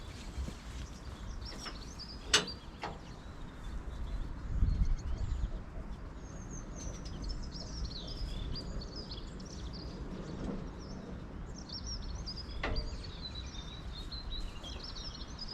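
Small birds chirping and twittering over a steady low rumble, with two sharp knocks, one about two seconds in and one near the end.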